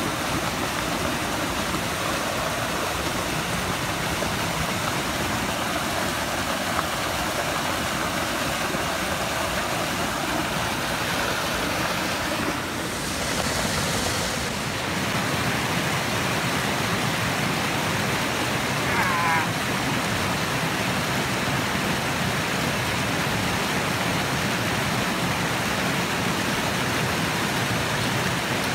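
Steady rushing of a mountain creek running close by: an even, unbroken water noise.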